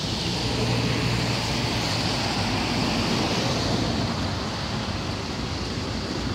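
Steady rushing road and wind noise from a moving vehicle travelling on a wet road, with a low engine hum most noticeable early on.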